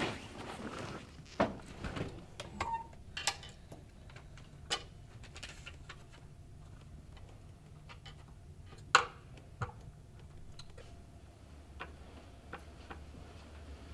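Scattered light clicks and knocks at uneven intervals, the loudest single knock about nine seconds in, over a faint steady low hum.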